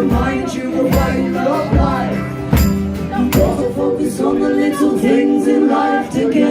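Live band music with singing, the voices held over a regular beat that strikes a little more than once a second.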